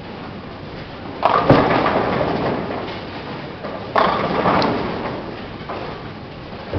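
Bowling alley: tenpin pins crashing as balls strike them, once about a second in and again about four seconds in, each a sharp bang followed by a short clatter, over the steady din of the hall.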